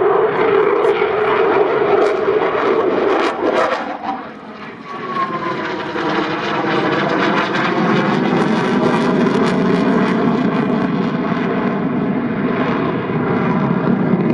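Eurofighter Typhoon FGR4 fighter jet's twin EJ200 turbofan engines, loud and continuous during a display flight, with crackling in the first few seconds. The sound dips briefly about four seconds in, a falling whine follows, and then it holds steady and strong.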